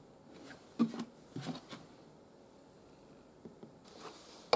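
Motor oil poured from a plastic jug through a funnel into a motorcycle engine: a few faint glugs about a second in. A few light clicks near the end.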